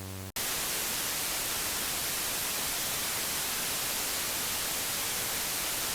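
A low steady electrical buzz cuts off about a third of a second in. After a split-second dropout, loud, even radio static starts and holds steady, the sound of a broadcast signal gone dead.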